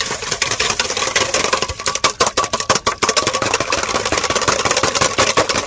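Wire balloon whisk beating eggs in a stainless steel bowl: a fast, even run of clattering strokes against the metal, with the bowl ringing steadily underneath.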